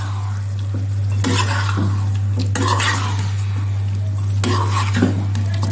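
Chicken pieces frying over high heat in ghee and butter in a black non-stick pan, sizzling steadily. A metal spatula stirs them and scrapes across the pan in several strokes.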